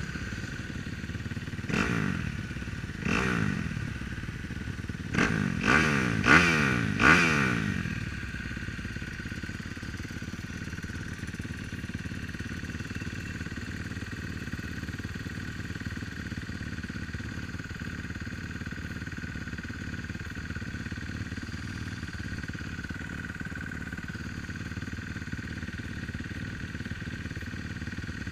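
Motocross dirt bike engines idling. The throttle is blipped in six short revs over the first seven seconds or so, the last four in quick succession, then the engines settle to a steady idle.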